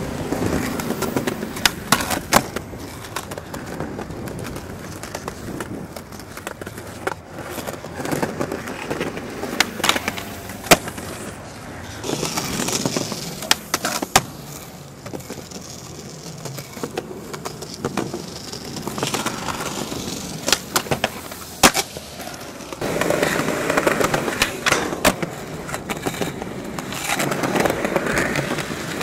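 Skateboard wheels rolling on concrete, broken by several sharp clacks of the board popping and landing, and longer scrapes of the board sliding blunt along a metal rail and a concrete ledge.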